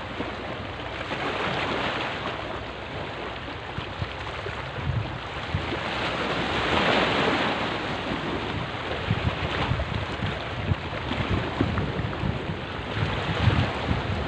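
Small sea waves washing against a rocky seawall, swelling about two seconds in and again around seven seconds in. Wind buffets the microphone in low gusts through the second half.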